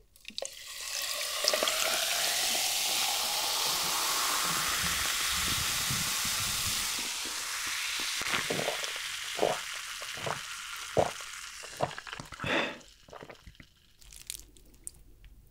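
Coca-Cola poured from a plastic bottle into a glass jar of ice, fizzing loudly, with the pitch of the pour rising as the jar fills. Then a run of gulps as it is drunk from the jar.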